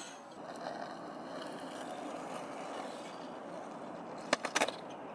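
Longboard wheels rolling on asphalt, a steady rumble, with three or four sharp clacks of the board near the end.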